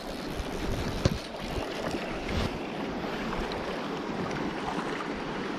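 Steady rush of river water with wind buffeting the microphone, and a couple of short knocks about a second in and again a little later.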